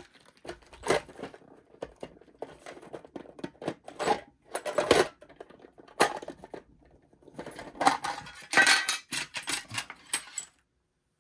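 Small metal lock parts and tools clinking and rattling as a lock is taken apart: an irregular run of light metallic clicks and clatters that stops shortly before the end.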